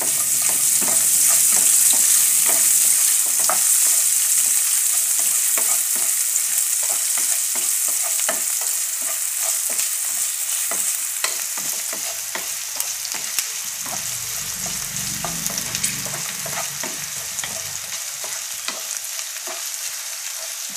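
Green chillies, ginger and garlic sizzling in hot oil in a nonstick wok, stirred with a wooden spatula that taps and scrapes against the pan. The sizzle is loudest in the first few seconds and eases slowly.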